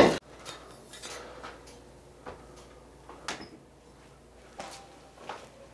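A few faint, separate knocks and clicks from a stainless wall oven's door being handled, the loudest about three seconds in.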